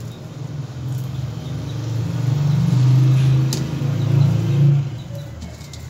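A low engine-like rumble that swells over a few seconds, loudest in the middle, and dies away shortly before the end.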